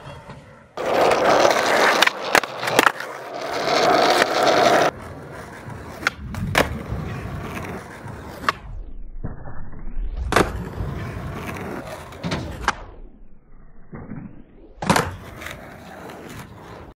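Skateboard wheels rolling on tarmac, with several sharp clacks of the board's tail popping and the board landing. The rolling is loudest in the first few seconds, and the sound changes level abruptly several times.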